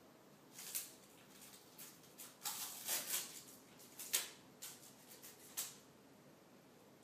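Adhesive tape being peeled off a wooden drawer by a cat: a series of short, irregular ripping bursts, the loudest about three and four seconds in.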